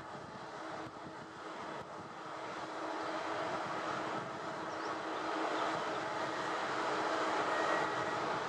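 Steady rumble of rail traffic with a constant low hum, growing louder in the second half of the clip.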